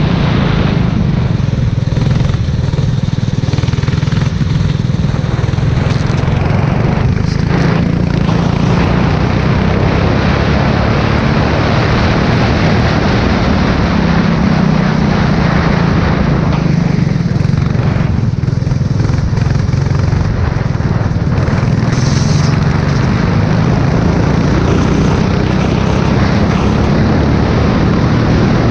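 F4 race car engine running hard on a wet track, its pitch rising and falling as it goes through the gears, over a steady rush of wind and tyre spray.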